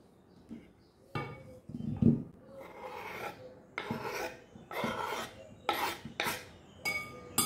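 Kitchen knife blade scraping repeatedly across a wooden cutting board, pushing chopped hard-boiled egg off into a bowl: a series of rasping strokes about once a second, with a louder knock about two seconds in.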